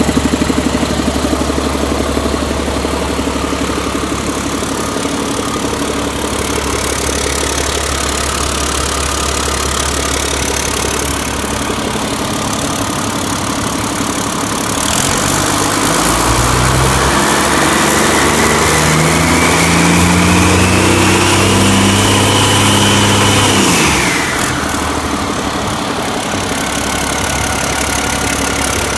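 2008 Caterpillar C7 ACERT inline-six diesel idling steadily, then revved up about halfway through, its pitch climbing with a rising whine, held for several seconds and dropped back to idle.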